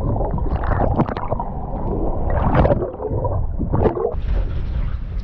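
Muffled gurgling and sloshing of seawater heard through a camera held just under the surface, with several uneven louder swishes. About four seconds in the sound turns brighter and more open, as the microphone comes out of the water.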